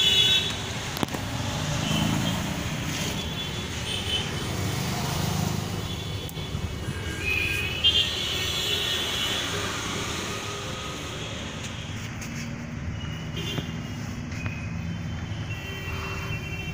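Steady low background rumble like distant road traffic, with a few short clicks.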